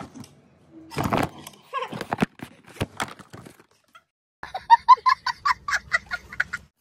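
A young child laughing hard in a rapid run of high, pulsing bursts, about four or five a second, starting a little past halfway through. Before it come a few scattered short sounds and clicks.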